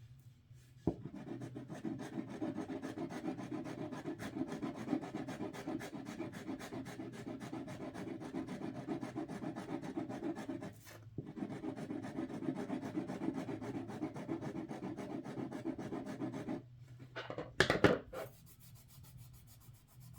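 Scissor blade scratching the scratch-off coating off a cardboard postcard: rapid, continuous scraping that pauses briefly about ten seconds in and stops around sixteen seconds in, followed by a short louder scuff near the end.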